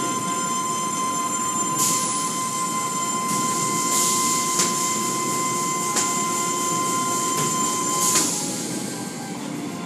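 Automatic tunnel car wash heard from inside the car: hanging cloth mitter strips sweeping and slapping over the body amid spray and machinery noise, with a few sharp slaps. A steady high whine runs under it and stops about eight seconds in.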